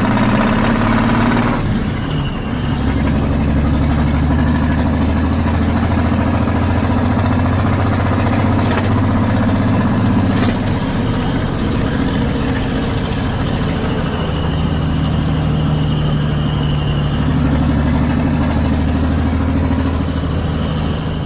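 A large truck's diesel engine running under way, heard from inside the cab; the engine note changes about two seconds in.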